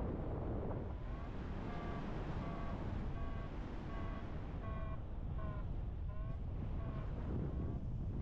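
Paragliding variometer beeping a steady series of short tones, about one and a half beeps a second, starting about a second in, some sliding slightly in pitch; the beeping is the vario signalling rising air. Steady wind rush on the microphone from the flight airflow underneath.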